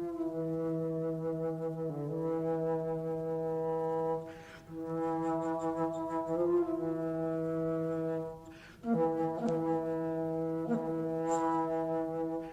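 Soundtrack music of long, held brass notes over a steady low tone, breaking off briefly twice before new notes start.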